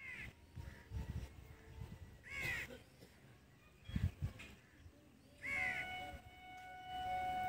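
Crows cawing in three short bursts of calls: at the start, about two and a half seconds in, and near the end. A steady held tone sounds under the last calls.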